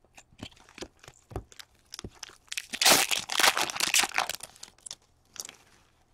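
A hockey card pack's wrapper being torn open and crinkled by hand. Scattered crackles come first, then a loud spell of tearing and crinkling between about three and four seconds in.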